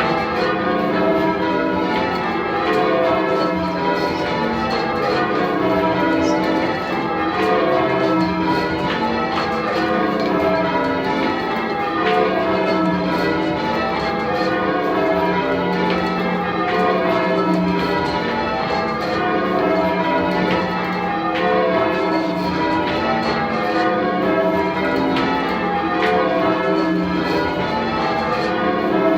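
A ring of ten church bells, tenor 18½ cwt in E, rung full circle in call changes: an even, unbroken stream of strokes, each bell striking in turn in rounds-like rhythm.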